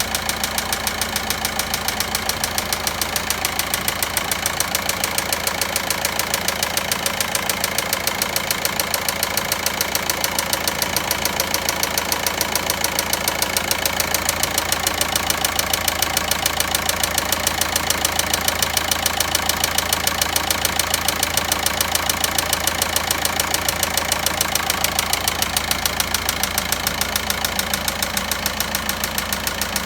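Volkswagen Passat 1.9 diesel engine idling with a steady, rapid, regular knocking. It is an abnormal engine noise whose source is being sought.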